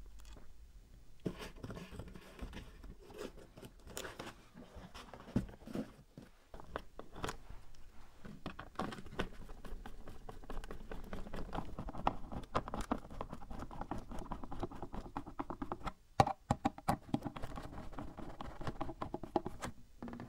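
Quiet close-up handling sounds of small assembly work: a string of sharp clicks and taps, and a hand screwdriver scraping as it turns screws through a speaker's metal frame into a cardboard box.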